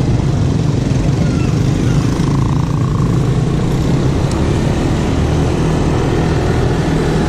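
Yamaha motor scooter being ridden along a road, heard from the rider's seat: steady engine and road noise.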